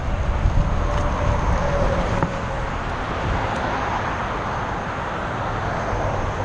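Steady road noise of a moving car, a low rumble of tyres and engine, dropping slightly a little over two seconds in.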